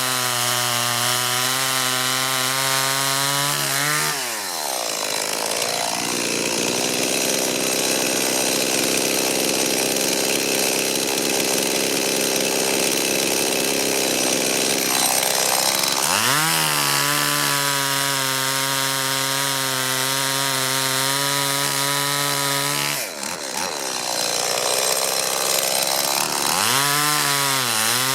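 Stihl MS 170 two-stroke chainsaw held at full throttle, cutting wood. The engine note drops and turns rough as the chain bites in, about four seconds in, and it saws for about twelve seconds before revving freely again. A second, shorter cut comes near the end. The rebuilt saw, with a new chain and carburetor, runs and cuts cleanly.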